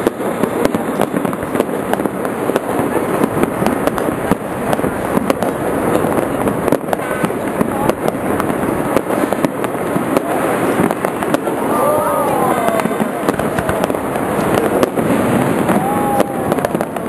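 Many fireworks and firecrackers going off at once: a continuous dense crackle of pops and bangs, with a few falling whistle-like tones about two-thirds of the way in and near the end.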